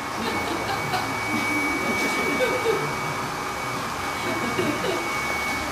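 A steady noisy hum with a thin, high, steady tone held throughout, and faint murmuring voices.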